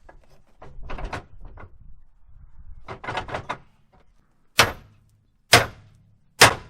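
Hammer striking a partly cut steel piece to knock it off: some lighter clanks and rattles, then three hard blows about a second apart, the first two with a brief metallic ring.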